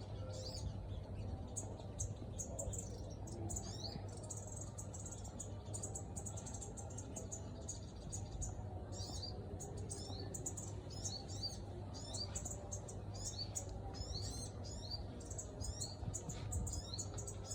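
Sogon birds calling against wild birds in a rapid, agitated run of short, high chirps and twitters, many overlapping, with a steady low hum underneath.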